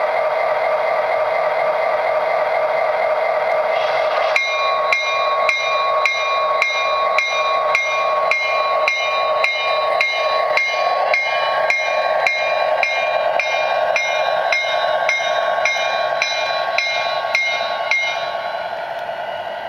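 O scale model Amtrak passenger train rolling past with a steady running hum. About four seconds in, a model grade-crossing bell starts dinging evenly, a little under two strikes a second, and stops near the end.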